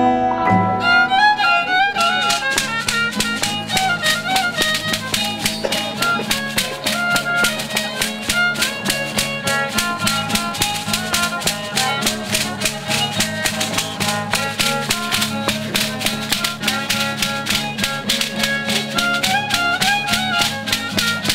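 Rarámuri dance music: a violin playing a quick, repeating melody over an acoustic guitar. About two seconds in, the dancer's dried-cocoon ankle rattles join with a fast, even rhythm of shaken clicks.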